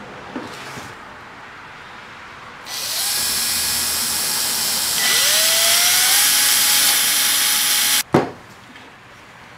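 A woodworking power tool starts about three seconds in and runs loudly, getting louder about two seconds later as a motor whine rises in pitch. It cuts off suddenly, followed right away by a sharp knock, the loudest moment.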